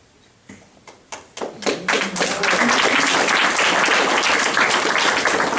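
Audience applauding: a few scattered claps about half a second in, swelling within about two seconds into steady applause.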